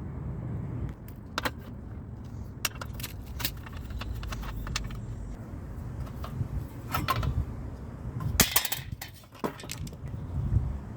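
Scattered metallic clicks and clinks of small engine parts and tools being handled, with a steady low rumble underneath. A denser burst of rattling comes about eight and a half seconds in.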